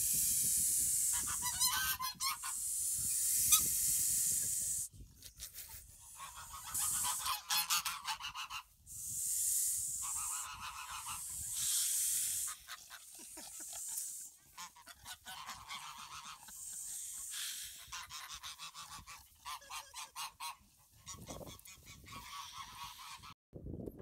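A flock of domestic geese honking and cackling in repeated loud bouts, each lasting one to several seconds, with quieter gaps between them.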